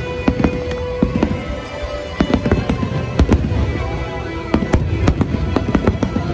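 Aerial fireworks display bursting overhead: a rapid, irregular run of sharp bangs and crackles, several a second, with music playing underneath.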